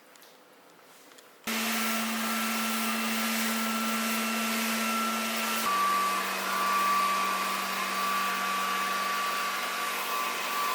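Vacuum cleaner switching on abruptly about a second and a half in and running steadily with a hum and a high whine, which step slightly lower in pitch about halfway through.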